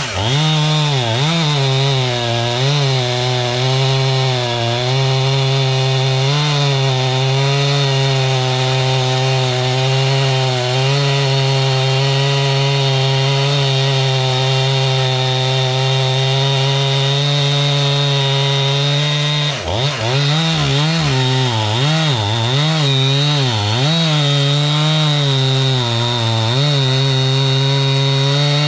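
Stihl 500i two-stroke chainsaw running at full throttle, cutting through a large log. The engine pitch holds steady under load, dips briefly about two-thirds through, then wavers up and down as the saw works on through the cut.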